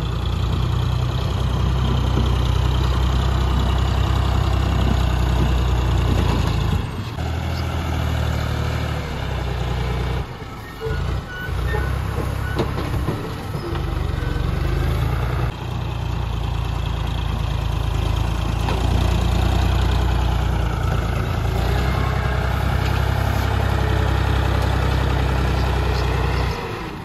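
Diesel engine of a farm tractor with a front loader running under load as it pushes and lifts brush, the engine note steady with a few brief dips.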